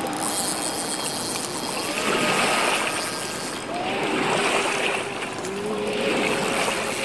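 Steady rush of sea water and surf below a pier, with faint wavering tones over it.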